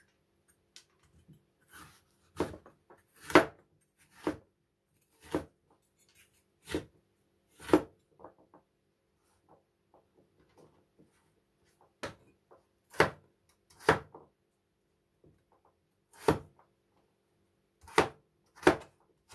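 Cleaver chopping butternut squash on a plastic cutting board: about a dozen sharp knocks, irregularly spaced, with a pause of several seconds midway.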